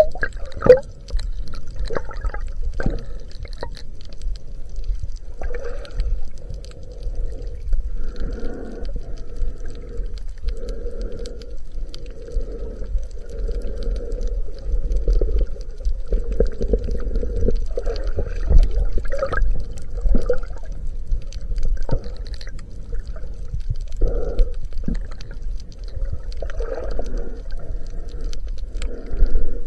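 Underwater sound picked up by a chest-mounted camera in its waterproof housing while snorkeling: a constant low rumble of moving water with repeated muffled swells of gurgling and sloshing, and scattered small clicks.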